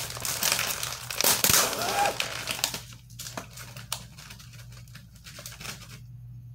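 Plastic packaging of an Oreo cookie pack crinkling as it is pulled open and a cookie is taken out. The crinkling is dense over the first few seconds, loudest a little over a second in, then thins to a few scattered crackles.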